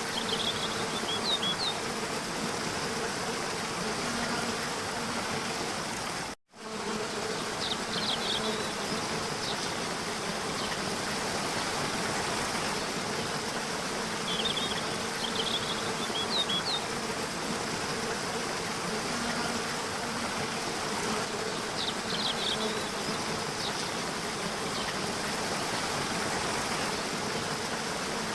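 Waterfall water rushing steadily, with a faint low steady buzz under it and small clusters of short high chirps every several seconds. The sound cuts out for a split second about six seconds in.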